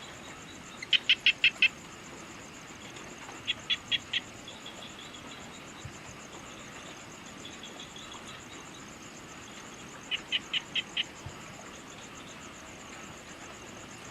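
A bird calling three times, each call a quick run of four or five short, sharp notes, over a steady high-pitched pulsing insect trill in evening nature ambience.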